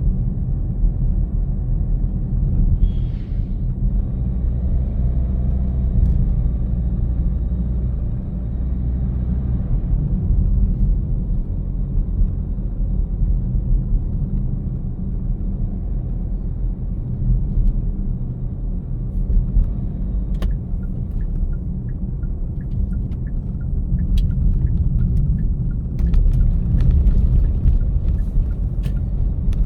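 Car driving at steady speed: a continuous low road and engine rumble, with scattered faint clicks in the last several seconds.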